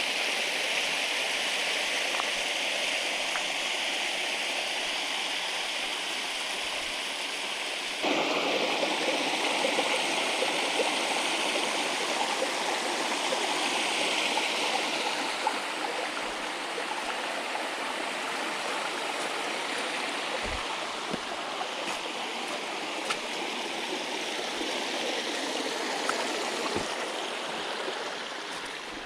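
Small waterfall splashing steadily into a creek; the water sound grows louder and fuller about eight seconds in.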